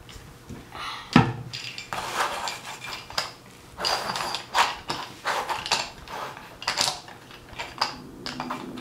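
A plastic paint bottle knocks down onto the table, then a small toy train is rolled back and forth through wet paint on a canvas over the table, its wheels rattling and scraping in quick repeated strokes.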